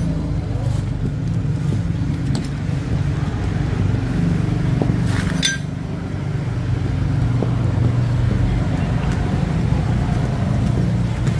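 A steady low mechanical rumble, like a running engine or motor, with a few light clicks and clinks over it, the clearest about halfway through.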